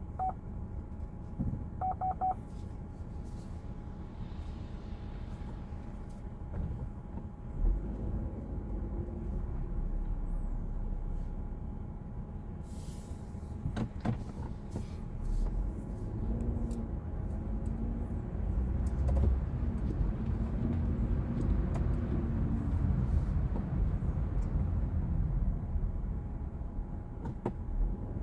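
Low, steady rumble of a motor vehicle running, with a few short electronic beeps about two seconds in.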